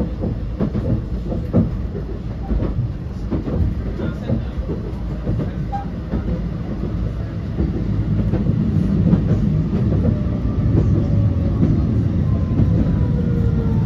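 Blackpool tram running along the track, its wheels rumbling and clicking over the rails. About halfway through it grows louder and a faint whine sliding slowly down in pitch comes in.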